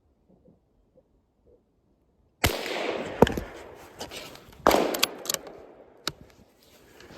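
Small-calibre rifle shots: one about two and a half seconds in and another about two seconds later, each with a long trailing echo, with several sharper cracks between and after them.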